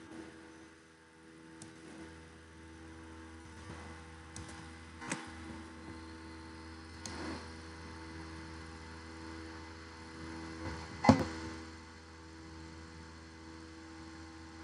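Steady hum with several steady tones, under a few sharp mouse clicks; the loudest click comes about eleven seconds in.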